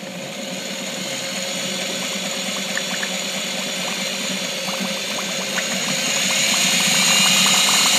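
BMW S38/M30 engine oil pump being run dry-started in a bath of oil, whirring steadily as it primes. A splashing hiss of oil spraying from its outlet builds up and grows louder from about six seconds in as the pump starts to deliver.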